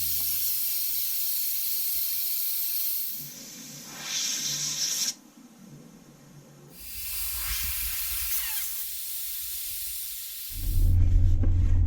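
Steady hissing noise, broken by abrupt cuts and a quieter gap in the middle, giving way near the end to a low vehicle rumble.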